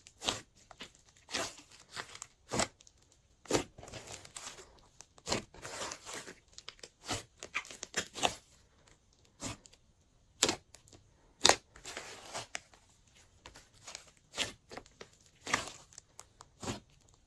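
Glossy slime being squished and stretched by hand, giving irregular sticky pops and clicks with a few longer crackly stretches.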